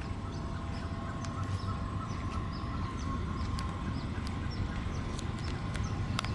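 Small birds chirping over and over in short high notes, over a low steady outdoor rumble. A faint steady whine fades out about halfway through.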